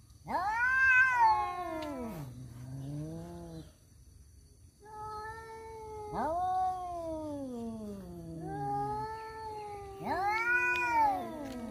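Rival tomcats yowling at each other in a standoff over a female: long drawn-out caterwauls that rise and fall in pitch. They come in several bouts with short pauses between, and the calls sometimes overlap.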